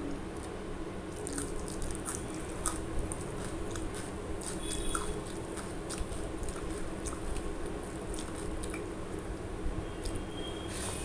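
Close-miked eating sounds: wet mouth clicks and chewing of rice pulao with yellow peas, with fingers squishing and scooping the rice on a steel plate. Scattered sharp clicks sit over a steady low hum.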